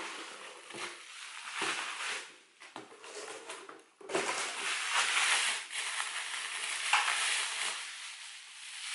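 Clear plastic wrapping being crinkled and peeled off a boxed phone, an uneven crackling rustle that drops away briefly about three seconds in.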